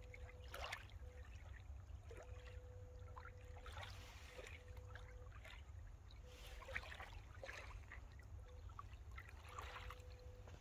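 Faint small waves lapping and trickling at a rocky lake shore, in short splashes every second or two, over a low wind rumble on the microphone.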